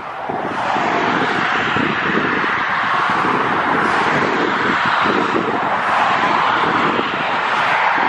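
Jet engines of an Airbus narrow-body twinjet on final approach, a steady jet noise that swells over the first second and then holds. Gusty wind buffets the microphone throughout.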